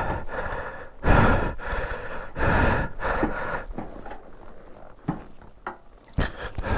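A person breathing hard close to the microphone, a few heavy breaths about a second apart, with a few light clicks in between.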